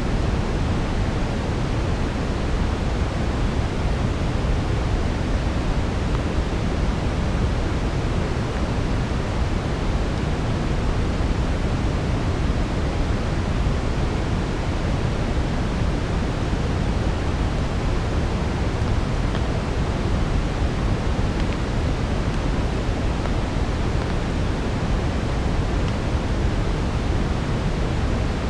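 Steady brown noise, deep and even, mixed with a soft fireplace fire that gives a few faint crackles now and then.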